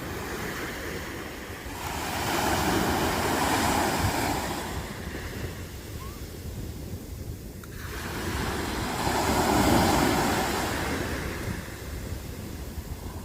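Sea waves breaking and washing up a sandy beach, surging twice, with wind rumbling on the microphone underneath.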